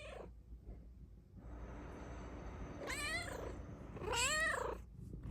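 A Bengal cat meowing twice, about three and four seconds in, each call under a second with a wavering, bending pitch.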